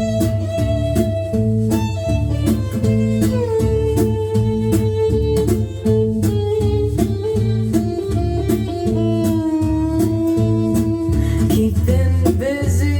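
Instrumental break in a rock song: a lead guitar plays long held notes that bend in pitch, over a steady bass line and a drum beat, with no singing.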